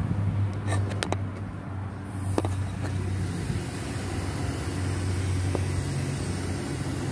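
A steady low mechanical hum, with a few light clicks and knocks from plastic and metal car parts being handled by hand, mostly in the first few seconds.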